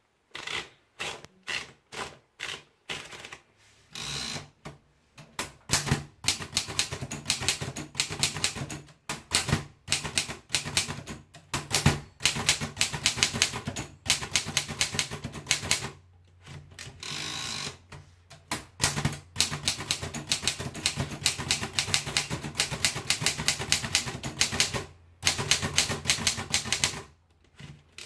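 Smith Premier model 35 typewriter being typed on: runs of rapid clacking keystrokes with a few short pauses.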